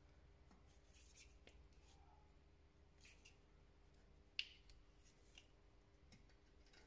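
Faint, sparse clicks and ticks from an L-shaped hex key turning in the drive of a VAG rear brake caliper with an electric parking brake, to reset the caliper without a computer. There is one sharper click about four and a half seconds in.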